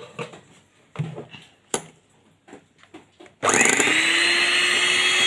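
A few light clicks and knocks, then about three and a half seconds in an electric hand mixer switches on, spins up and runs steadily at a loud, even motor hum as its beaters whisk eggs and sugar in a glass bowl.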